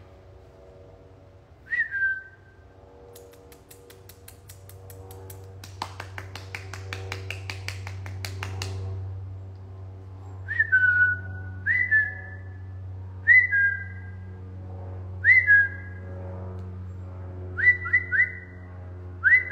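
A woman whistling short calls through pursed lips, each a quick falling two-note slide, repeated about seven times with gaps of a second or two. A run of quick clicks comes between the first call and the rest, over a steady low hum.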